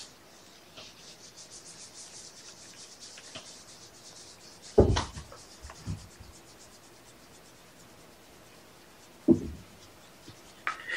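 Fingers scratching a tabby cat's fur, a quick, even scratchy rustle of many strokes a second. Two heavy thumps break in, about five and nine seconds in, with a lighter one near six seconds.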